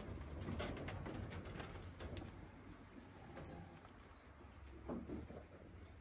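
Rabbits hopping and feeding on a wire-mesh hutch floor, with scattered light clicks and rustles of leaves. A bird chirps three times in quick succession about halfway through.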